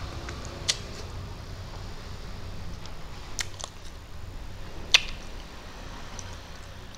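A person eating fish with his fingers, close to the microphone: quiet chewing with a few sharp mouth clicks, the loudest about five seconds in, over a low steady hum.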